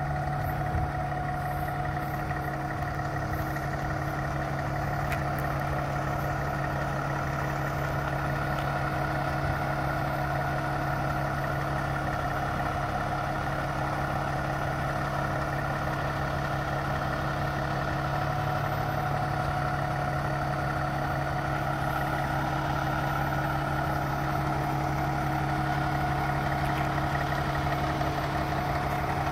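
Diesel engine of a Peterbilt semi tractor running steadily at low revs as the truck creeps forward with a lowboy trailer, a constant hum that grows slightly louder near the end as it draws closer.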